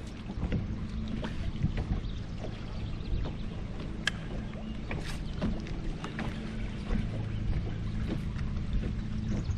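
Small waves slapping against a fibreglass bass boat's hull, with light ticks, over the low hum of the bow-mounted Minn Kota Ultrex electric trolling motor, which drops out for a few seconds in the middle and comes back.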